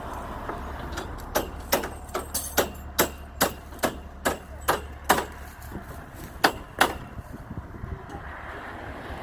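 Hammer blows at a building site: about a dozen sharp strikes, a little over two a second, a pause, then two more near the end, over a steady low rumble.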